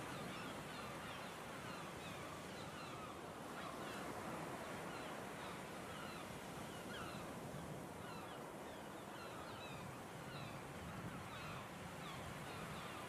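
A flock of birds calling together: a constant scatter of short, falling calls over a steady low rush.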